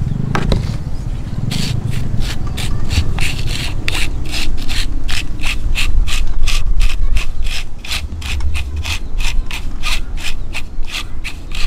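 Dried arrowroot flour being worked through a sieve: quick, regular rasping strokes, about three or four a second, starting about a second and a half in.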